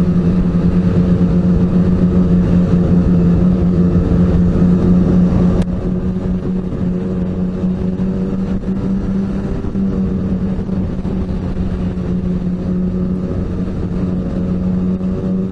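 Ski-Doo snowmobile engine running at a steady cruising speed, heard from the rider's seat. About five and a half seconds in, the sound suddenly drops in level and loses its hiss, while the engine note carries on unchanged.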